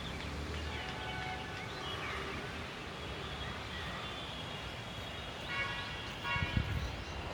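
Birds chirping, with many short rising and falling calls over a steady outdoor background noise. Two stronger, harsher notes come about five and a half and six seconds in, and a low rumble starts soon after.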